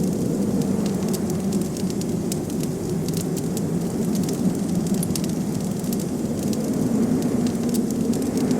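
A wood fire crackling with frequent small, sharp pops over a steady low rush of blizzard wind.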